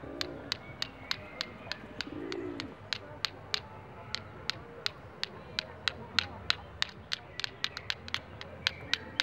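Two nuts in the shell knocked together in a child's hands, a quick, uneven run of sharp clicks at about four a second: the knocking that calls park squirrels to be fed. Birds call faintly in the background.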